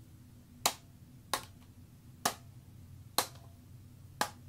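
Five sharp, short clicks a little under a second apart as a D-cell battery and an old camcorder's battery pack are handled and knocked together.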